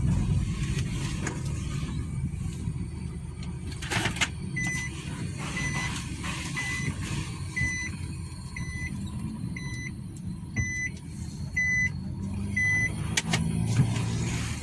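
Nissan Juke engine and road noise while driving, running without misfire now that cylinder 2 has been fixed. From about four seconds in, a short electronic beep repeats roughly once a second, about nine times.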